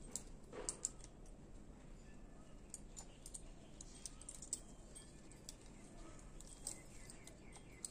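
Faint, irregular metallic clicks and clinks of a folding hex-key multi-tool working the small bolts of a folding bike's stem hinge clamp, coming in small clusters.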